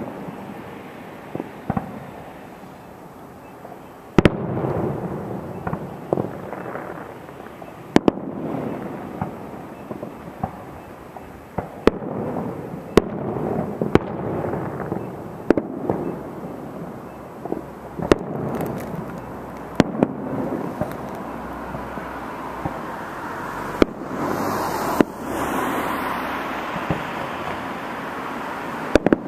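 Distant fireworks display: about a dozen sharp bangs at uneven gaps of one to four seconds, each trailing off in a rumble, with a steady rolling rumble between them.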